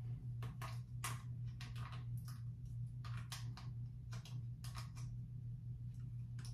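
Scattered light clicks and taps of small plastic hair-clipper guard attachments being handled in the hands, about a dozen at irregular spacing, over a steady low hum.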